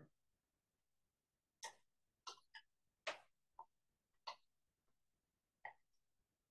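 A spoon scraping and knocking inside a mini chopper bowl as a thick paste of roasted onion, ginger, garlic and green chilies is stirred down; about eight short, irregular knocks with near silence between them.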